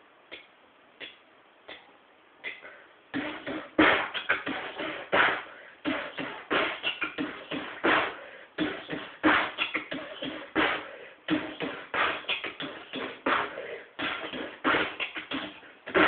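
Beatboxing: a few scattered soft mouth clicks, then about three seconds in a fast, steady rhythm of mouth-made drum sounds, deep kick-like thumps mixed with sharper snare- and hi-hat-like hits.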